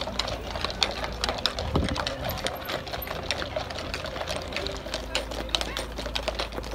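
Hooves of a group of horses clip-clopping at a walk on an asphalt road, a dense run of overlapping, irregular clicks.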